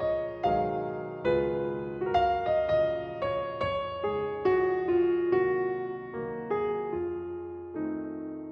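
Background music: a gentle piano melody, notes struck about twice a second and left to ring.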